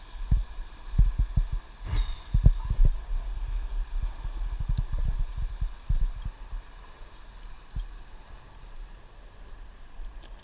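Muffled, irregular low thuds and sloshing of someone moving through river water, close to the microphone. The bumps are dense for the first several seconds and thin out near the end.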